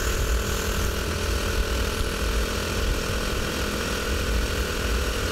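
Honda Super Cub 90's small single-cylinder four-stroke engine running at a steady speed while riding, with wind rushing over the microphone.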